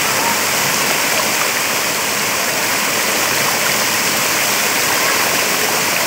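Small rocky waterfall pouring steadily, a loud even rush of falling water breaking over a man's back and splashing into the shallow pool below.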